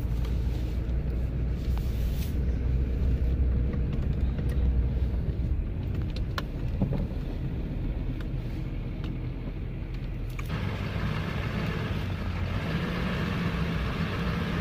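A vehicle's engine running and its tyres rolling slowly over a rough dirt track, heard from inside the cab, with a few faint knocks. About ten seconds in, the sound changes abruptly to a steadier, higher-pitched engine-like hum.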